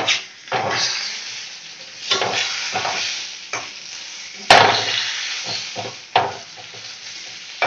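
Fish head frying in hot oil in a pan, sizzling, while a utensil scrapes and turns it. Sharp knocks of the utensil on the pan, the loudest just past halfway.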